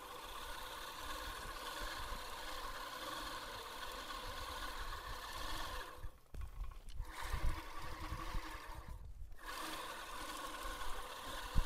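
Manual five-blade push reel mower's reel spinning against its cutting bar as it cuts grass, a steady whir that drops out twice for under a second past the middle.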